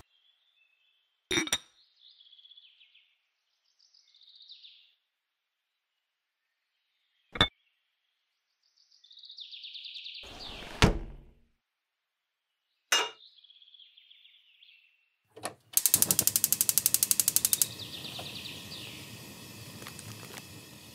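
A small drawer sliding open and shut with light knocks, and tiny metal pans clinking and scraping as one is taken out. Near the end a miniature gas stove's igniter clicks rapidly for about two seconds, then the lit burner hisses steadily.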